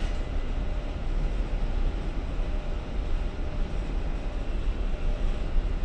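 Steady low rumble aboard a container ship, wind buffeting the microphone over a faint hum of ship machinery.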